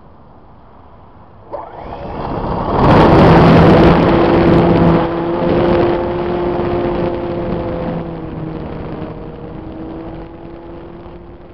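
Motor and propeller of a small RC stick-fuselage model plane ('Patyczak'), heard from a camera mounted on the model. The motor starts suddenly with a rising whine about a second and a half in, then runs with a loud rush of air as the plane takes off and climbs. A steady propeller drone follows and slowly fades.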